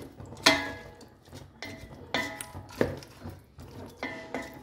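A stirring utensil knocking and scraping against a stainless steel pot while raw chicken pieces are mixed into spiced onion masala. There are about five sharp metallic knocks, each ringing briefly.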